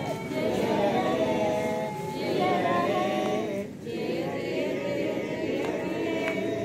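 A group of people singing together in unison, a choir-like chorus holding long notes, with a short break nearly four seconds in.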